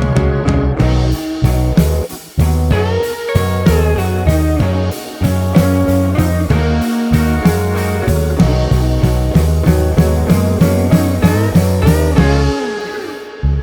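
Background music: guitar-led rock with a steady beat and a bass line.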